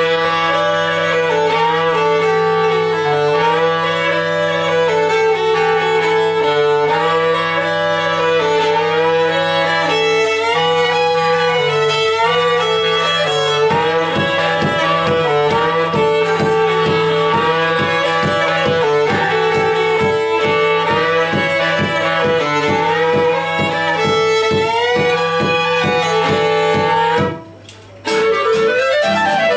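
Violin, clarinet and acoustic guitar playing a fast folk tune together. From about halfway the guitar strums a steady rhythm under the melody, and all three stop briefly just before the end, then come back in.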